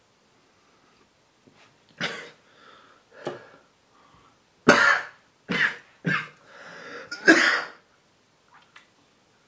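A man coughing in a series of about six harsh coughs, the throat irritated by food seasoned with pepper spray.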